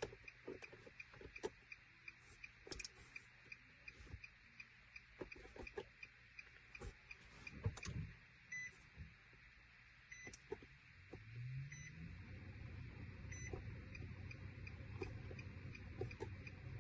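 Faint clicks and handling noises over a steady light ticking, then four short electronic beeps evenly spaced about a second and a half apart, all during key programming of a Nissan Altima. Around two-thirds of the way in, a low hum rises in pitch and then runs steadily.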